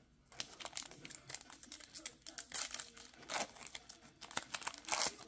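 Foil wrapper of a Panini Contenders football card pack crinkling in the hands as it is handled and pulled open, a string of sharp crackles that are loudest about three and a half seconds in and again near the end.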